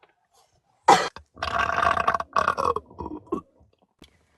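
A woman's long belch starting about a second in, drawn out in several rough pushes over about two and a half seconds.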